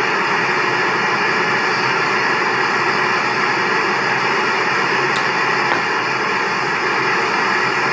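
Steady loud rushing hiss, even and unchanging throughout.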